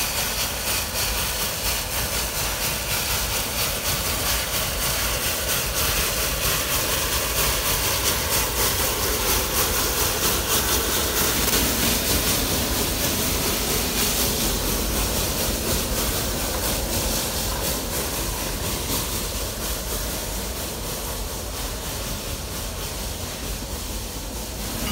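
Heisler geared steam locomotive working, its exhaust a fast, even beat over steady hiss, swelling a little in the middle and easing toward the end.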